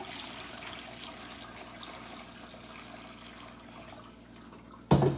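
Chicken broth pouring and trickling steadily through a strainer into a pan, with one loud clunk near the end.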